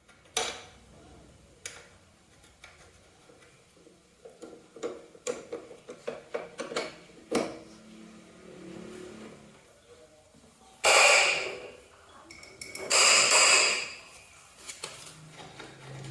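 Tools and parts clicking and knocking during hands-on work on a scooter, followed by two loud hissing bursts, each lasting about a second.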